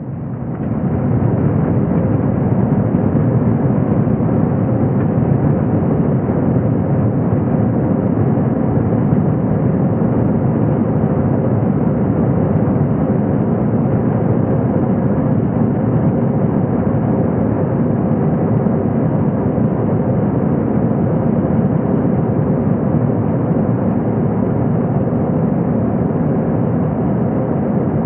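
Airbus A321 jet engines heard from inside the cabin, coming up to takeoff power in the first second and then running loud and steady through the takeoff roll, with a steady hum of tones under the roar.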